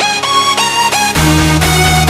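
Electronic background music: a melody of quick notes, each sliding up in pitch as it starts, with a deep bass coming in a little past halfway.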